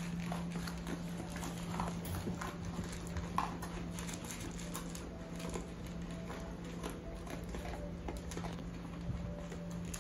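Two dogs eating dry kibble from plastic bowls: irregular crunching and clicking as they chew and nose the bowls, over a steady low hum.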